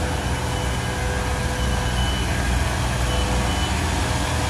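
Giant motorised retractable umbrellas unfolding: a steady low mechanical hum and rumble, with short high beeps coming and going.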